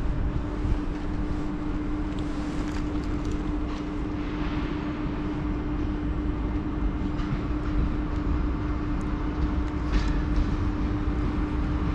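Blue-and-grey SNCF electric locomotive hauling double-deck coaches, moving along the platform: a steady electric hum over a low rumble of wheels on rail, with a few sharp clicks about ten seconds in.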